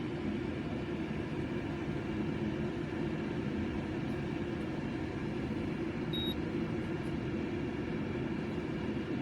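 Evaporative humidifier's fan running with a steady whirr, and one short high beep from its control panel about six seconds in, the beep that sounds at each button press.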